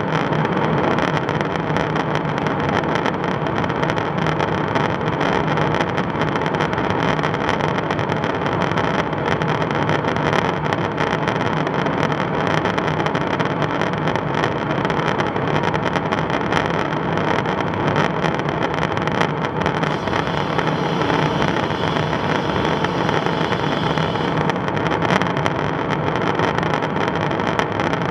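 Steady in-flight drone of a KC-135 Stratotanker: engine and airflow noise heard inside the boom operator's compartment, an even rush with a few constant tones running through it.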